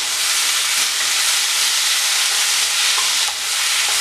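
Chopped ripe jackfruit cooking with coconut and jaggery in a frying pan, sizzling steadily as a spatula stirs it through.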